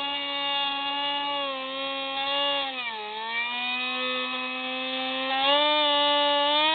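Electric motor and propeller of a Hubsan Spyhawk FPV model plane whining steadily, heard from the plane's onboard camera. The pitch sags about three seconds in and climbs back up near the end.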